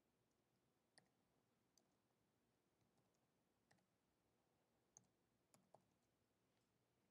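Faint, sparse keystroke clicks on a computer keyboard, about six scattered single clicks against near silence.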